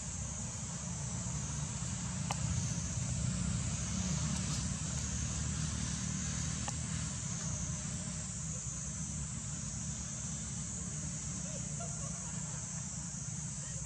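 Steady outdoor ambience: a continuous high-pitched insect drone over a low rumble, with a few faint clicks.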